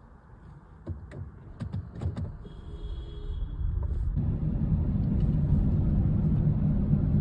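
A few sharp clicks and knocks, then about four seconds in a low rumbling noise sets in and grows louder.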